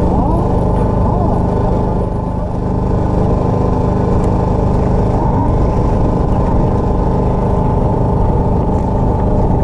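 Small fishing boat's engine running steadily at constant speed, with the steady hum of the motor underway.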